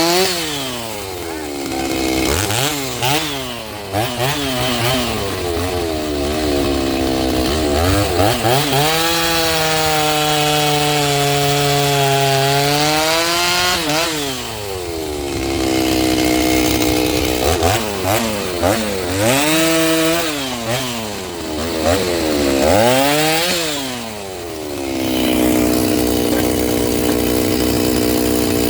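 Stihl MS 390 two-stroke chainsaw, rebuilt with a Hipa top-end kit, running and revving up and down repeatedly, with stretches held at high revs and a steadier run near the end. The owner puts its uneven running down to it running rich while the new kit is still breaking in.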